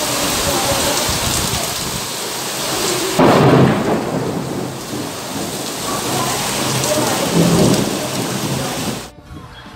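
Heavy rain pouring steadily, with a loud low clap of thunder about three seconds in and further rumbles a few seconds later. The rain sound cuts off abruptly near the end.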